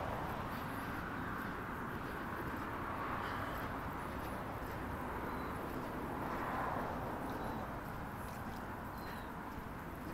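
Steady outdoor background hiss of road traffic from the street alongside, with footsteps on a paved path.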